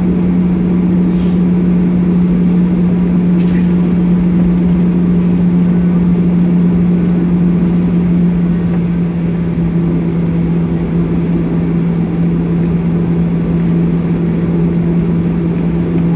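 Jet airliner's engines and air system heard from inside the cabin while taxiing: a steady low hum with a constant drone tone that neither rises nor falls.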